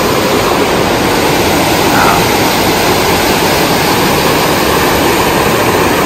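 River water rushing past: a loud, steady noise without any pitch.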